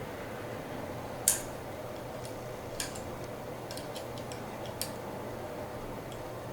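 Scattered light metallic clicks and ticks of a tool working the small screws and parts of a muzzleloader trigger assembly as they are snugged down, the sharpest about a second and a half in and a quick cluster around four seconds, over a steady low hum.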